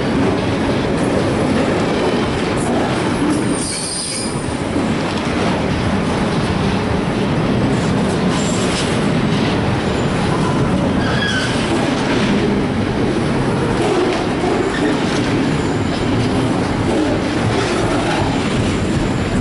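Container wagons of a freight train rolling past close by: a loud, steady rumble and clatter of wheels on the rails, with brief high-pitched wheel squeals about four seconds in and again about eleven seconds in.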